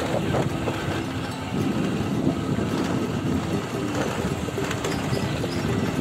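A motorcycle running at riding speed, heard as a steady rushing rumble. A simple melody of music plays over it, its notes changing pitch every fraction of a second.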